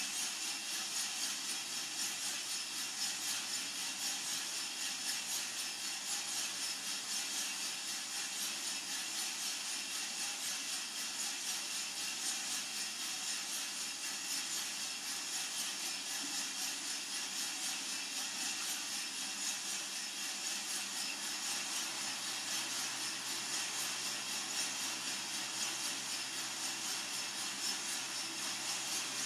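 Coffee-Tech FZ-94 lab drum roaster running with a charge of beans, early in the roast: a steady hiss with a fine, fast rattle that does not change.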